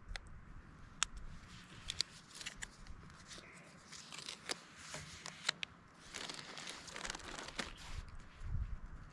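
Crinkling and tearing of a food wrapper being opened and handled, with irregular sharp crackles.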